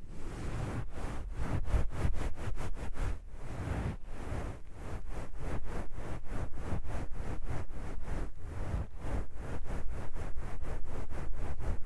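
Cloth towel rubbed against an ASMR microphone in quick, regular back-and-forth strokes, about three a second, each stroke a soft scratchy swish.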